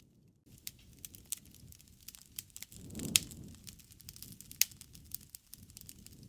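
Wood fire crackling: a steady scatter of sharp pops and snaps over the low rustle of the flames, with two louder pops about three and four and a half seconds in.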